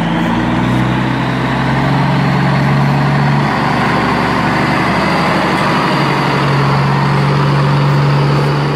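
Big rig truck engine running steadily with a deep hum, a recorded truck sound laid over the animation in place of the music.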